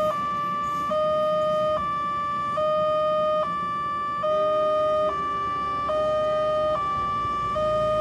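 Railway level-crossing warning alarm sounding a steady two-tone electronic hi-lo signal, switching tone about every 0.85 seconds. It is the signal that the crossing is closed to road traffic for a train.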